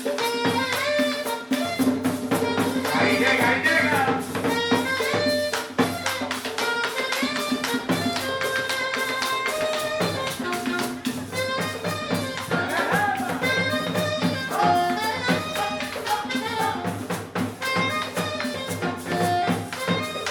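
Live cumbia band playing: a steady drum and percussion beat under sustained horn melody lines.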